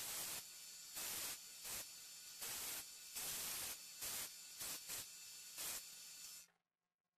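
Central Machinery bench belt-and-disc sander running as the end of a wooden mallet head is sanded flush on the belt, with a steady motor hum under the sanding noise and repeated louder surges as the wood is pressed on. The sound cuts off abruptly about six and a half seconds in.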